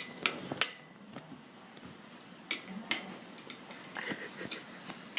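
A series of sharp, irregular knocks, about half a dozen, some with a brief ringing tone, like something hard being banged or tapped.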